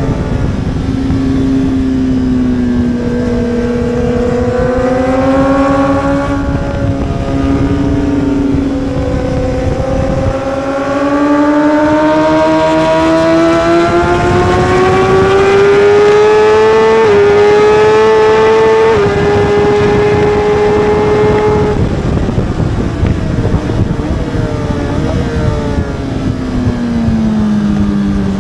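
1000 cc superbike engine at racing speed: its note climbs steadily under hard acceleration, with two quick upshifts in the middle, then falls away with small blipped downshifts as it brakes near the end. A steady rush of wind noise runs underneath.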